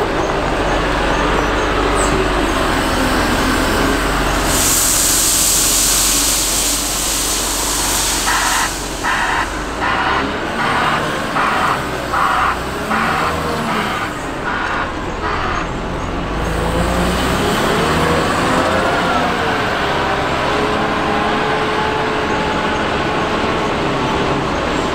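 Hidromek HMK 640 wheel loader's diesel engine running under work, with a loud rushing hiss lasting about three seconds starting around five seconds in. Its reversing alarm then beeps steadily, about one and a half beeps a second, for around seven seconds, and the engine pitch rises and falls near the end.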